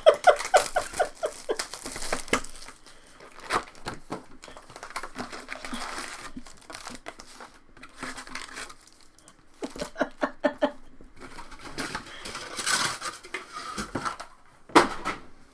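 Trading-card pack wrappers crinkling and tearing open, with cards being shuffled and handled in irregular rustles and clicks.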